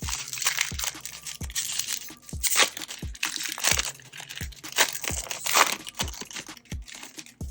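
A baseball card pack's wrapper being torn open and crinkled in repeated bursts. Background music with a steady kick-drum beat plays underneath.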